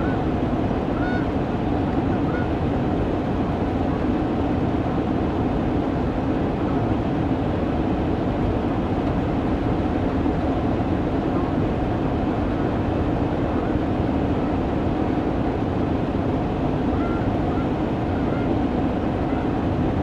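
Canada geese honking faintly, a call about a second in, another about two seconds in, and a cluster of calls near the end, over a steady loud rumble that covers everything.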